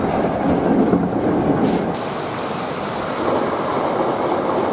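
Hankyu electric train running at speed, wheels on the rails heard from the front of the cab. About two seconds in, the sound changes to a train heard from beside the track as it crosses a bridge over a small stream.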